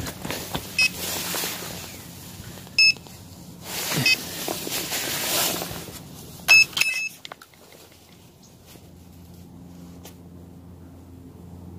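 Electronic carp-fishing bite alarms on a rod pod give a few short high beeps, two coming close together near the middle, as the rods are handled, with rustling handling noise between them.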